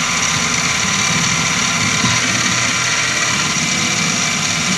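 MicroLux mini milling machine running steadily, its spindle turning a No. 1 countersink that spots a starting hole in a steel billet for the drill that follows.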